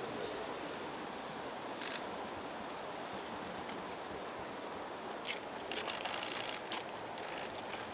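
Camera shutters clicking in quick runs, once about two seconds in and then in repeated bursts during the second half, over steady outdoor background noise.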